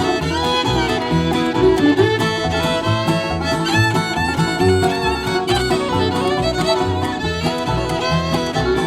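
Bluegrass band playing an instrumental intro: fiddle carrying the melody over banjo, guitar and a steady plucked stand-up bass beat.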